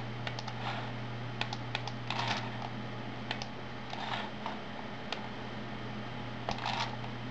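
Computer mouse buttons clicking at irregular moments, a few in quick succession about two seconds in and again near the end, over a steady low electrical hum.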